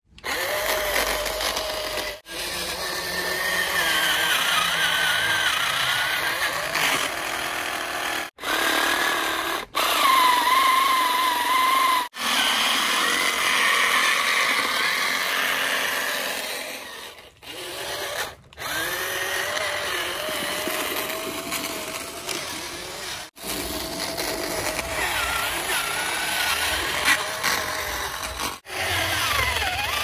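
Small electric motor whirring, its pitch wavering up and down as the load changes, broken off abruptly several times.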